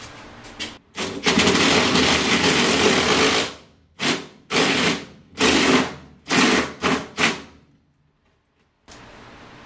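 Cordless drill running against a wall: one long run of about two seconds, then a string of six short bursts.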